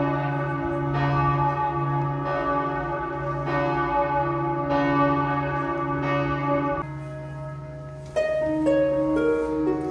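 Salzburg Cathedral's bells ringing, about one stroke a second over a deep, lasting hum. The ringing cuts off about seven seconds in, and after a short pause a melody of plucked, harp-like notes begins.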